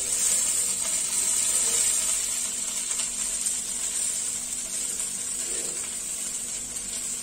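Chicken roasting in a hot oven, its fat sizzling in a steady hiss, with a faint steady hum underneath.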